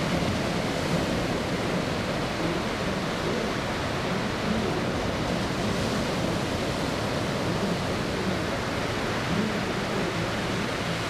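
Steady, even jet roar of a C-5M Super Galaxy's four turbofan engines as the transport banks away.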